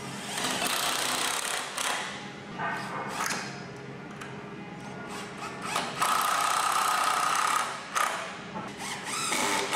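Power drill driving 2.5-inch screws into cedar log dowel joints, its motor whirring in several spells. The longest runs steadily from about six to eight seconds in and cuts off sharply, with short bursts near the end.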